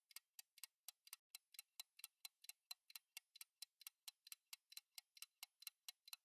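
Faint, even clock-like ticking, about four to five ticks a second.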